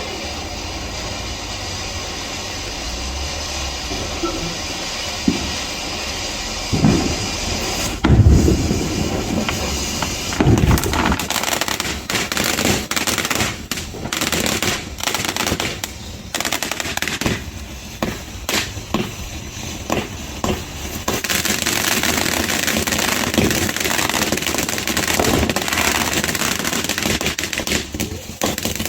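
Consumer fireworks going off: a steady fountain hiss, then several loud bangs, then a quick run of sharp cracks and pops. From about two-thirds of the way through comes a louder, brighter, steady hiss of a fountain spraying.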